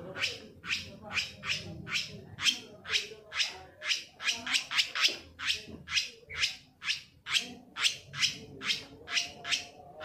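Long-tailed shrike (cendet) giving a long run of short harsh calls, about two to three a second and quickening in the middle. It is a lure call meant to set other shrikes singing.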